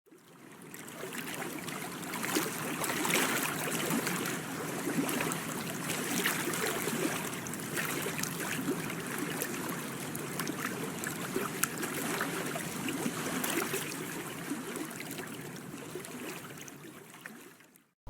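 Water trickling and lapping, with small splashes, fading in at the start and out near the end.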